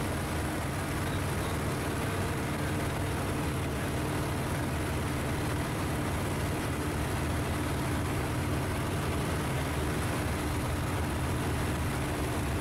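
Just Aircraft Highlander light bush plane in flight, its engine and propeller droning steadily at a constant pitch.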